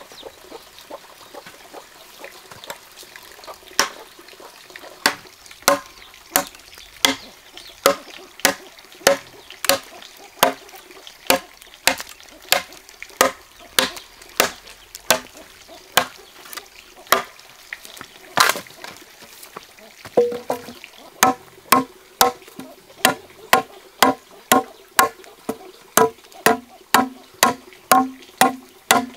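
Machete chopping into a green wooden log, blow after blow at a steady pace of about one and a half strokes a second. In the last third the strokes quicken to about two a second, each with a dull wooden knock.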